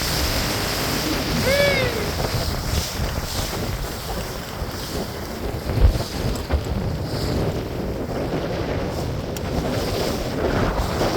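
Wind buffeting the microphone over water splashing around a fishing boat, a steady rushing noise. There is a brief squeak about a second and a half in, and a dull knock near six seconds.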